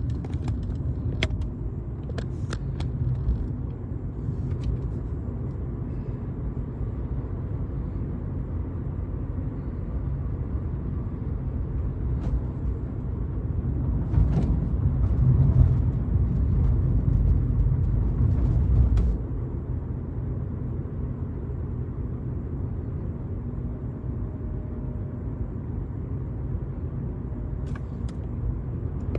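Steady low rumble of engines and road traffic, with a few sharp clicks early on. It swells louder a little past halfway for about five seconds, then drops back suddenly.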